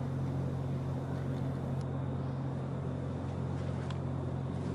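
Steady low machine hum with two strong low tones and a faint hiss above them.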